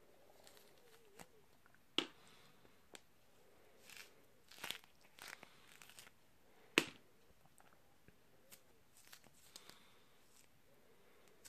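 Cheonhyehyang citrus being peeled by hand: soft tearing of the rind and pith pulling away from the juicy segments, with scattered sharp cracks as bits of peel break off, the loudest a little under seven seconds in.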